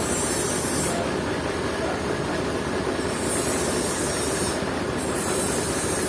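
Sawmill machinery running steadily, with a high hiss that comes and goes three times.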